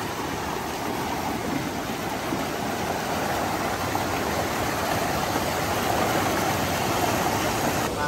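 Rushing waterfall water: the steady roar of white water pouring over rocks, heard close up.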